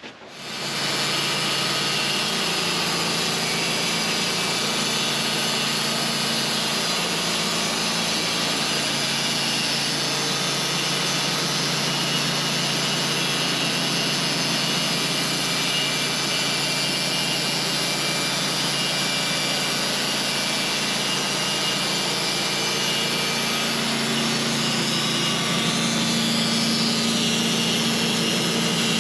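Portable sawmill's engine coming up to full throttle and running steadily under load as the blade cuts through a large white pine log. The engine note shifts slightly higher near the end.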